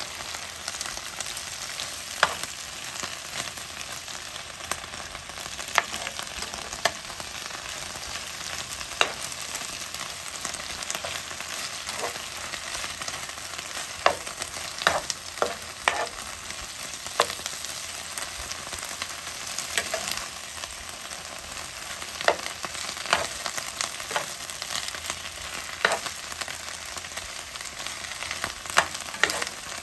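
Bok choy sizzling steadily in a hot frying pan while it is stir-fried, with irregular clacks and scrapes of the spatula against the pan every second or few.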